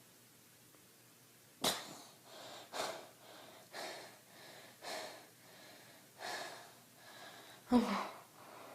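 A girl lets out a long-held breath with a sharp gasp about a second and a half in, then breathes hard, about one breath a second, with a louder voiced gasp near the end. She is recovering from holding her breath to stop hiccups.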